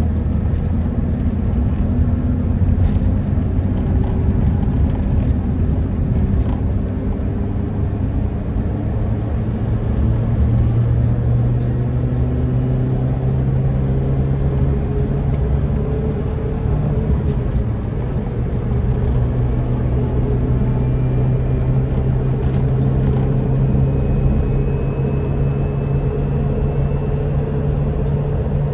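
Engine and road noise from a 1995 Mitsubishi Pajero Mini under way: a steady low drone with tyre hiss. Its pitch rises slowly about ten seconds in as the car speeds up, then holds steady.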